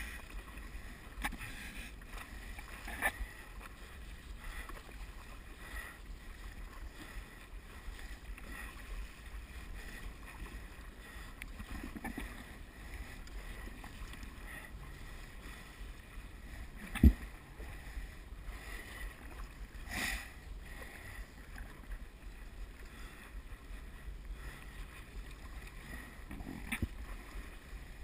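Stand-up paddle strokes: the blade dipping and pulling through calm water with small recurring splashes, over a steady low wind rumble on the microphone. A few short knocks are heard, the loudest a sharp thump a little past halfway.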